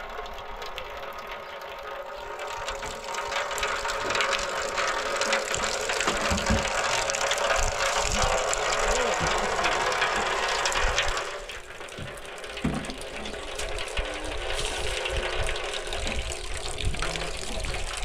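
Steady rain falling hard, a dense patter of drops. It eases for a moment about eleven seconds in, then picks up again.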